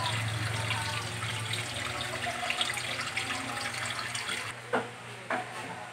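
Water running from a tap, stopping about four and a half seconds in, followed by two short sharp knocks.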